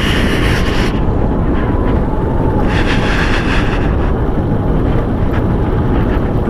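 Motorcycle on the move: wind rushing over the microphone over the bike's road and engine noise, with two brief hissing swells, one at the start and one about three seconds in.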